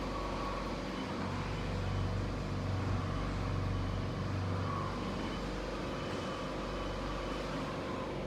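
Steady hum of an HWGC HW-T6 SMT pick-and-place machine running its automatic high-camera calibration, with a low drone that swells for a few seconds about a second in.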